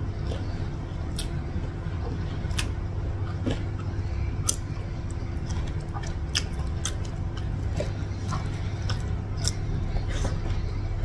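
Eating by hand and chewing: irregular sharp mouth clicks and smacks, over a steady low background hum.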